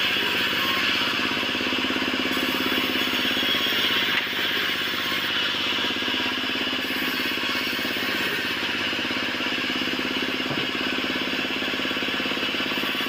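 Sawmill band saw running steadily while cutting lengthwise through a weathered wooden beam: a continuous mechanical drone with a steady low hum and a hissing rasp from the blade in the wood.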